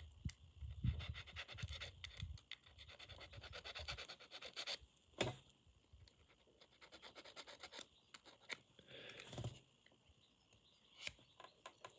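Scratchy rubbing of a cleaning tool over the plastic of a small wireless computer mouse, in quick fine strokes for the first few seconds, with a single sharp click about five seconds in.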